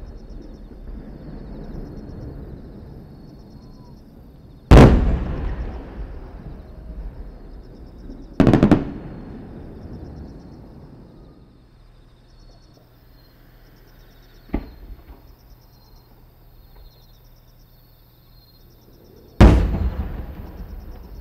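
Aerial firework shells bursting: three loud booms, about five, eight and a half and nineteen and a half seconds in, each trailing off in a rolling echo, with a fainter crack in between. Crickets chirp steadily underneath.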